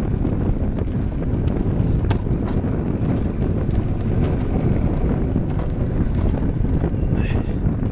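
Wind rushing over the microphone and the steady low rumble of an alpine coaster sledge running fast along its steel tube rails. A few faint clicks come through, and there is a short high squeak near the end.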